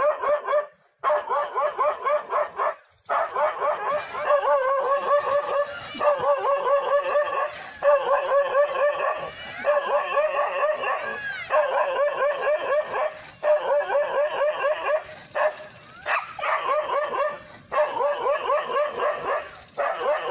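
A pack of dogs barking and yelping frantically and without pause, many short high yaps overlapping one another, with a couple of brief breaks in the first few seconds. This is agitated barking at a leopard that the dogs are confronting.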